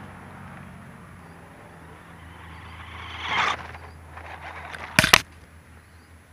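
Radio-controlled Taiyo Jet Hopper truck running on dirt: a steady low motor hum fades as it drives off. About three seconds in, a loud rush of noise swells and dies away. A sharp double knock about five seconds in, loudest of all, comes as the ground-level camera is jolted.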